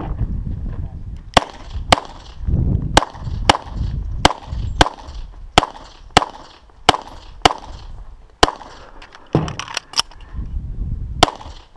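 Semi-automatic pistol firing a string of about fifteen shots, many as pairs about half a second apart, with a low rumble between the shots.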